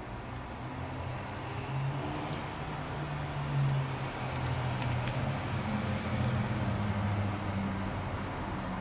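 Steady low engine hum of a motor vehicle or road traffic, growing a little louder over the first few seconds. A few faint light clicks are heard over it.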